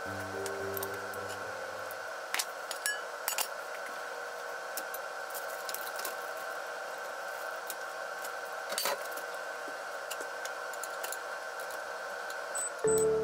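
Steady kitchen hiss with a faint even hum as oil heats in a frying pan on a gas hob, broken by a few light clinks. Background music notes die away in the first couple of seconds and come back near the end.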